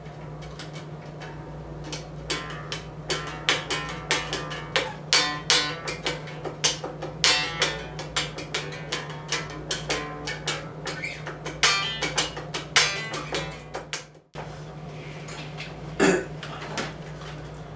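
Yamaha electric bass played in a quick run of sharp, percussive notes over a steady low hum. The playing stops about fourteen seconds in, leaving the hum and a single knock near the end.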